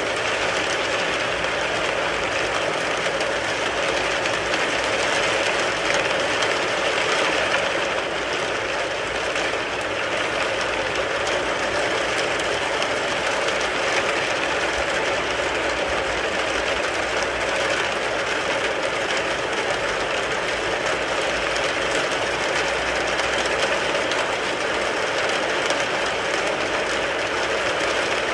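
Steady rain falling on a car, a dense, even patter of drops that keeps up without a break.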